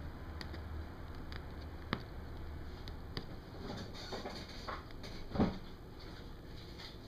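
Pixie-Bob kittens play fighting on a hardwood floor: scattered light clicks and patter of paws and claws on the wood and on the couch fabric. The scuffling gets busier in the second half, with one louder short thump about five seconds in.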